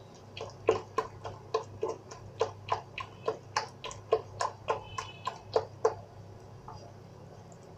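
Thick gram-flour (besan) batter being beaten by hand in a glass bowl: quick, even slapping clicks, about three or four a second, which stop about six seconds in.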